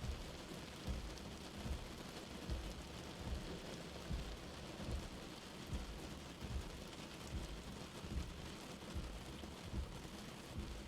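Light rain falling steadily in an even hiss, with soft low thuds of drops landing about once a second.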